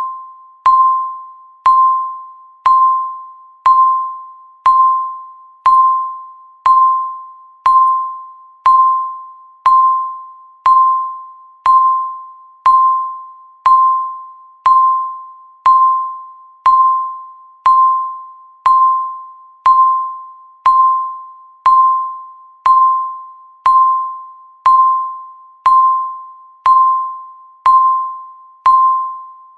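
Countdown timer's tick sound: a clear, bell-like ding once every second, each one dying away quickly before the next.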